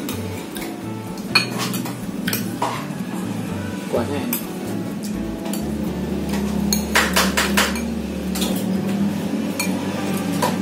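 Fork and spoon clinking and scraping against ceramic plates while eating, in scattered clinks with a quick run of several about seven seconds in, over a steady low hum.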